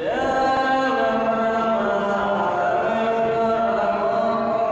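Buddhist monk chanting prayers into a microphone, his voice amplified for broadcast over the temple complex. The chant is held on long steady notes that step up and down in pitch.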